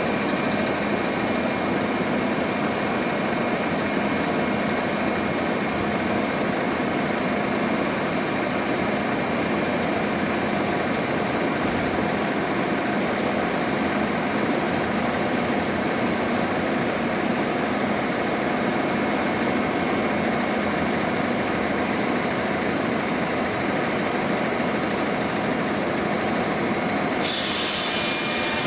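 JR 201 series electric commuter train standing at a platform, its onboard equipment running with a steady hum and faint whining tones. Near the end a louder hiss comes in.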